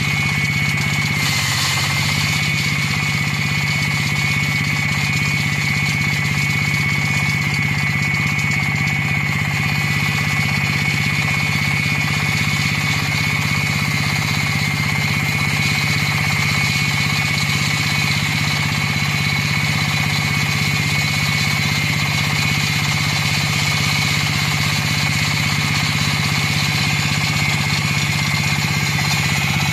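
38 hp diesel engine of a tracked concrete floor saw running steadily under load while its wet diamond blade cuts through a concrete slab. A steady high whine from the cut sits over the engine's low drone, and the whine dips briefly about a second and a half in.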